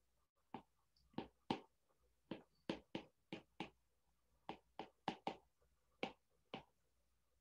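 Stylus tip tapping and ticking on an iPad's glass screen while letters are hand-written: about fifteen faint, sharp taps at an uneven pace.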